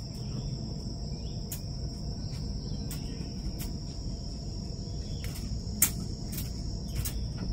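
Steady high-pitched chorus of insects, with a few sharp metallic clicks from the wire-mesh cage trap and its bolts and nuts being handled. The loudest click comes near the end.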